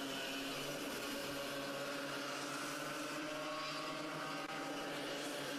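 Small kart engines of IAME Bambino racing karts running at speed, a steady engine note.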